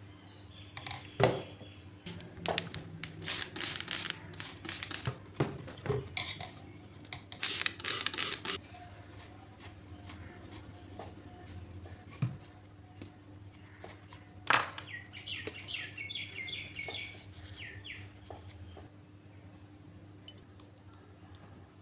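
A plastic silicone sealant cartridge handled and set down on a table: a series of clicks and knocks starting about a second in, with a few bursts of rubbing and scraping in the first half and one loud knock midway. Birds chirp briefly in the background just after the knock.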